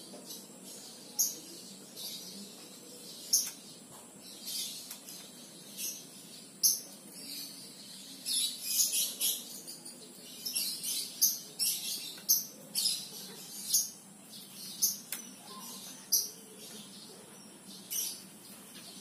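Birds chirping in short, high, irregular calls that come thickest around the middle.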